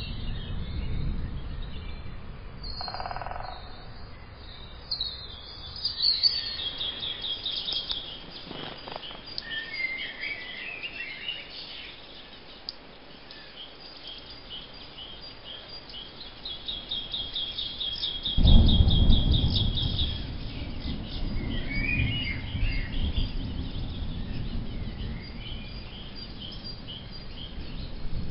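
Birds chirping, with rapid high trills twice, over a low rumble that comes in suddenly about two-thirds of the way through and is the loudest sound.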